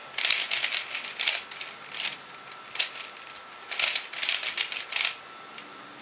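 A 3x3 Rubik's cube turned by hand, its plastic layers clicking in quick runs of turns with short pauses between them; the turning stops about five seconds in.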